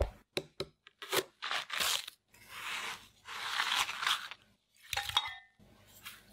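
A hand knocks a few times on a whole watermelon, then a scoop scrapes through the juicy watermelon flesh in three long crunching strokes. Near the end come a few light knocks and a short clink.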